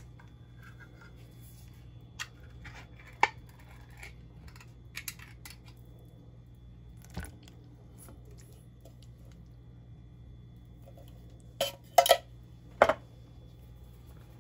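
Metal spoon scraping crushed pineapple out of a tin can into a stainless steel mixing bowl. Scattered clinks are followed by a cluster of sharp metal taps about twelve seconds in.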